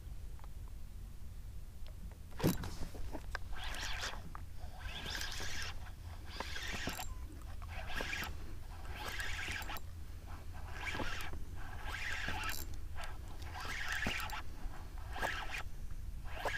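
Fishing reel being cranked in short rasping bursts, about one a second, as a fluke is reeled in.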